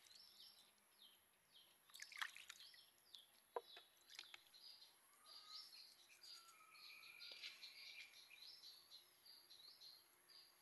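Faint outdoor background of small birds chirping over and over, with a brief splash of water about two seconds in as chicken is rinsed in a bowl, and a few sharp clicks around four seconds.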